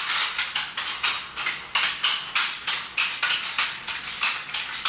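Children's roller skates clattering and rolling over a hard floor in quick short strokes, about four a second, as a toddler shuffles along on them.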